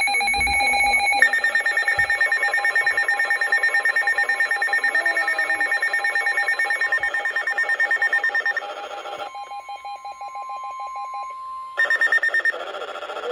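Electronic emergency-alert attention tones: a loud multi-tone alarm pulsing rapidly for about nine seconds. It softens, a steady single tone joins it for a couple of seconds, and the pulsing alarm comes back loud near the end.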